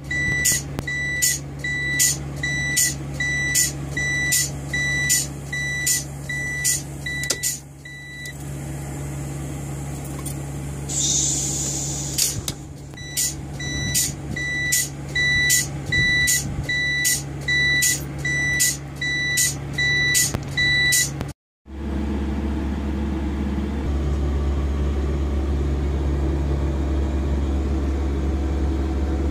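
A truck's hazard-warning flasher beeping, one short high beep about one and a half times a second. It stops for about five seconds midway, then resumes. After a cut, a steady low drone takes over and grows louder a few seconds later.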